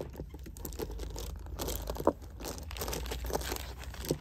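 Strands of fireball baroque pearls being handled: the pearls click and rattle against one another among soft rustles from the hands, with one sharper click about two seconds in.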